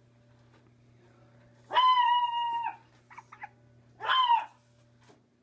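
Small dog giving a long, high, howling bark about two seconds in, two quick yips, then a shorter howling bark near the end.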